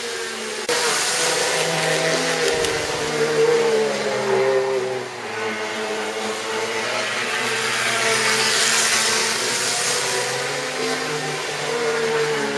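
Model train running on the layout: its small electric motor whines steadily, the pitch wavering slightly with speed, over the hiss of the wheels rolling on the track. It gets louder about a second in.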